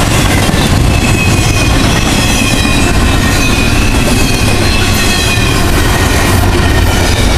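Double-stack container well cars rolling past at close range: a steady, loud rumble of steel wheels on rail, with a thin high squeal from the wheels wavering over it.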